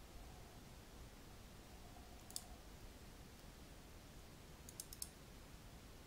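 Computer mouse button clicks over near-silent room tone: a single click about two seconds in, then a quick run of clicks about five seconds in.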